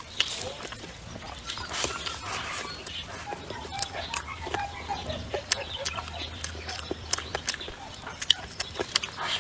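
Chickens clucking, with wavering calls through the middle, over many short sharp clicks.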